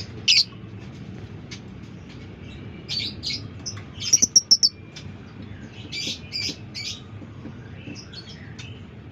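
Lovebird chirping: short, sharp, high calls in small clusters, with a quick run of about five calls in a row near the middle and three more about two seconds later.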